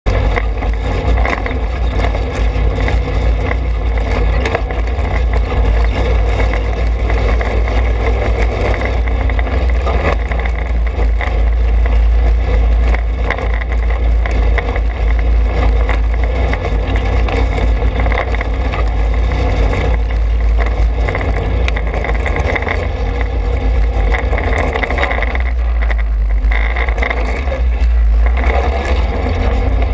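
The single-cylinder four-stroke engine of a Trailmaster 200 XRX dirt bike runs continuously under way on a dirt trail, with heavy low rumble. The throttle eases briefly near the end.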